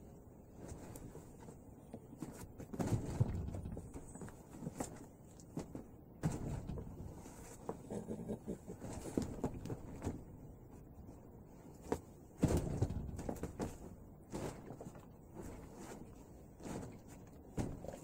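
Forearms and hands knocking and sliding against the taped arms of a self-made Wing Chun dummy during slow drills: scattered soft thuds and a few sharper knocks, with rubbing and clothing rustle between.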